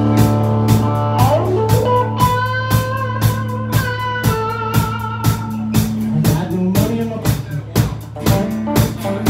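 Live country band playing an instrumental break: a drum kit keeping a steady beat under bass and guitars, with a lead melody line bending and sliding over the top.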